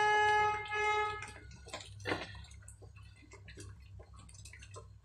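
A steady held tone with overtones sounds for about the first second and then stops. After it comes the wooden spoon knocking and scraping against the sides of an aluminium pot in irregular clacks, as thick dal is stirred and mashed.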